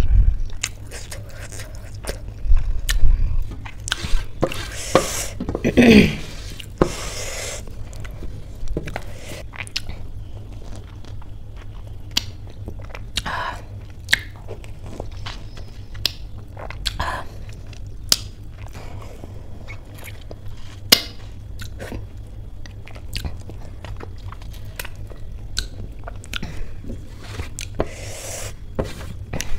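Close-miked chewing and biting into a crisp cucumber slice: crunches and wet mouth clicks scattered throughout, busiest in the first several seconds.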